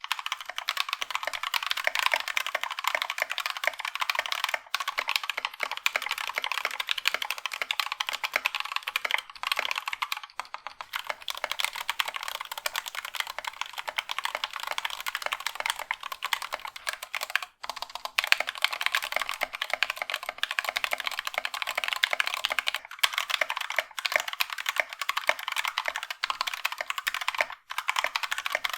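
Fast typing on a mechanical keyboard fitted with Gateron Yellow-family linear switches in stock or factory-lubed form, a dense run of key clacks. It stops briefly every few seconds before picking up again.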